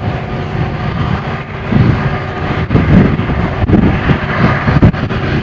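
A CSX freight train's diesel locomotives running past with a steady engine drone. From about two seconds in, wind buffets the microphone in irregular low gusts.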